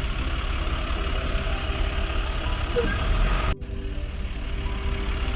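Heavy construction-vehicle engine running steadily as a sound effect, with a sharp cut about three and a half seconds in where it stops and starts again at once.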